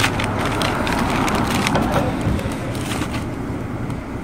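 Brown paper bag crinkling and rustling as a bagel is pulled out of it by hand, a dense crackle that dies down near the end.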